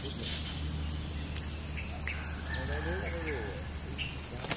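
Steady high-pitched chorus of forest insects, with a few short, faint bird notes in the middle and near the end.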